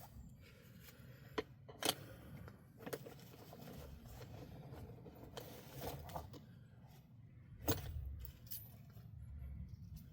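A few sharp clicks and knocks, like small hard objects being handled, over a faint low rumble; the loudest come about two seconds in and again near eight seconds.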